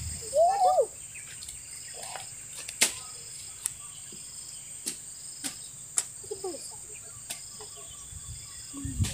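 Insects chirring steadily at a high pitch, with a short voice-like call about half a second in and a few sharp clicks.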